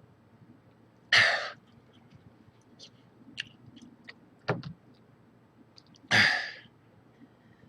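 A man coughing and hacking hard while forcing down wet tissues: three sharp bursts, loud ones about a second in and about six seconds in with a smaller one between, the sound of tissues stacking up in his throat.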